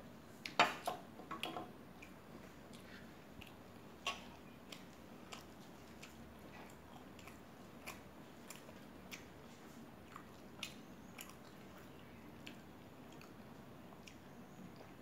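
A china teacup set down on its saucer, a few sharp clinks about half a second in. Then soft, close-up chewing and wet mouth clicks while eating.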